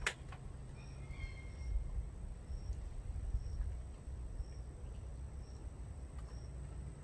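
Outdoor ambience: a steady low rumble with faint short high chirps about once a second, and one sharp click right at the start.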